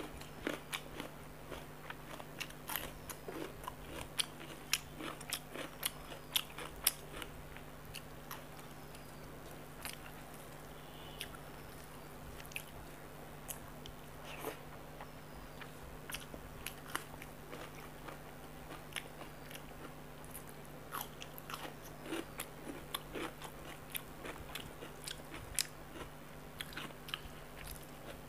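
Close-up eating sounds of a person eating rice mixed with chicken curry gravy by hand: wet chewing, lip smacks and fingers working the rice on a metal plate, heard as a run of short sharp clicks and smacks. A faint steady hum lies underneath.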